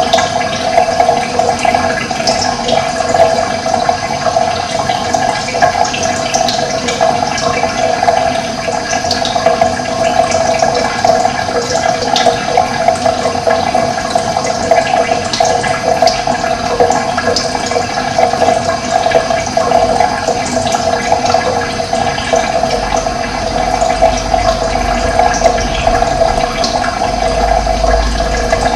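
Steady rush of running water, with scattered short, high bird chirps over it.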